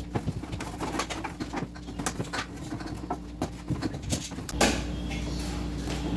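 Light knocks and clicks of jars and bottles being handled while a fridge is restocked, then a steady rushing noise starts about four and a half seconds in.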